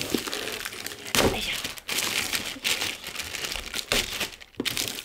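Thin plastic bag crinkling and rustling in irregular bursts as it is pulled off a plastic pet water fountain, with a louder crackle about a second in.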